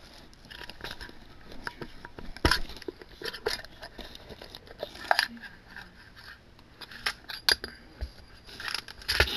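A metal Luxury Ball collector's tin being handled and opened: scraping and rustling with several sharp clicks and knocks as its metal halves are worked apart and set down.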